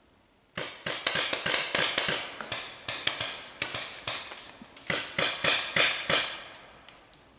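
Paintball markers firing a rapid, irregular string of sharp pops, starting about half a second in and dying away about a second before the end.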